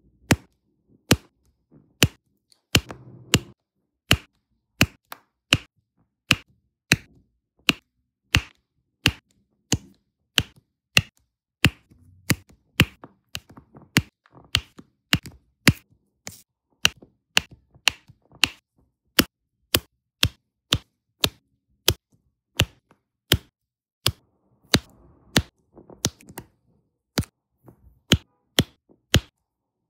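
A diamond painting pen pressing resin drills onto the sticky canvas one at a time. Each press makes a sharp click, at a steady pace of a little under two a second.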